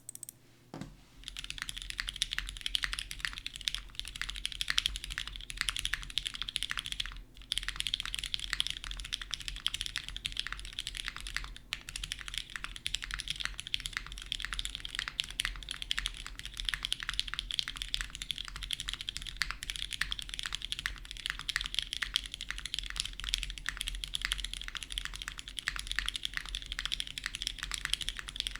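Continuous typing on a custom mechanical keyboard: lubed Cherry MX Hyperglide Black linear switches on an FR4 plate, with GMK keycaps. It is a dense run of crisp keystroke clacks, with a brief pause about seven seconds in and a faint low hum underneath.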